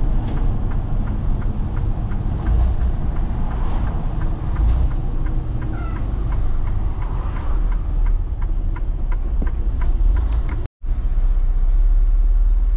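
Semi-truck engine running with road noise, heard from inside the cab as the truck drives and turns. A run of light, evenly spaced ticks comes partway through, and the sound cuts out for a moment near the end.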